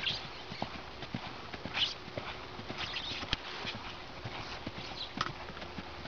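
Hoofbeats of a ridden Haflinger mare cantering on grass: dull beats in an uneven rhythm. A few short hissy noises stand out over them, the loudest a little under two seconds in.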